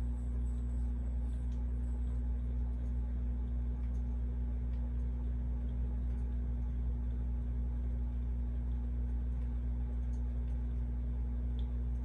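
1981 CEC ToastMaster spinner ceiling fan running steadily at medium-high speed: a constant low motor hum with a soft rush of air from the blades.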